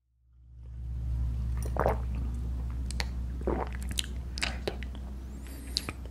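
Close-miked mouth sounds of drinking from a glass: a handful of short wet sips, gulps and swallows, spread out over a few seconds, over a steady low hum.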